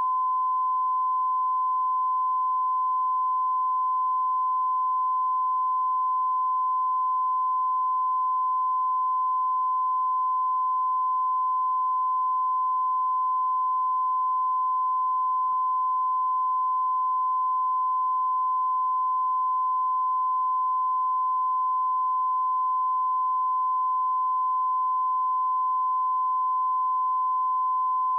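A steady 1 kHz line-up test tone, one continuous pure tone at an unchanging level. It is the reference tone played with SMPTE colour bars for setting audio levels.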